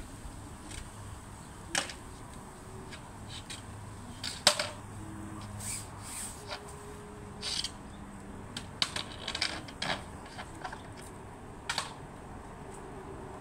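Hands scrubbing soapy window screens: irregular clicks and short scraping strokes against the mesh and frames, the loudest a sharp click about four and a half seconds in.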